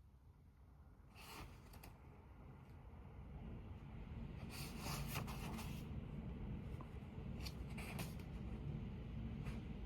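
Typing on a computer keyboard in short bursts of quick key clicks, with pauses between them, over a low steady hum that swells about a second in.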